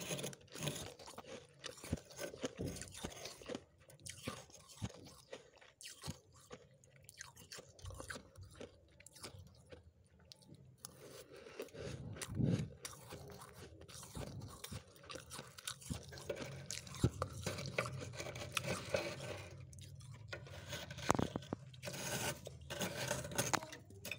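Freezer frost being crunched and chewed close to the microphone: a dense, irregular run of crisp crunches.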